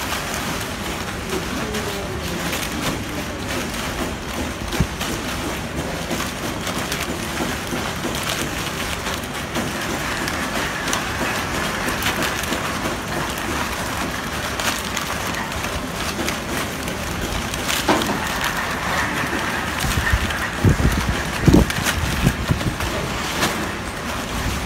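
Plastic bags full of PET punnets rustling and crinkling as they are handled and packed into a cardboard box. There are a few dull knocks near the end.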